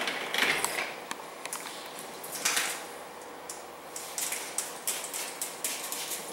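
Hand work fitting clear paint protection film to a car's front end: a few short hissing squirts, with soft crinkling and clicking of the film in between.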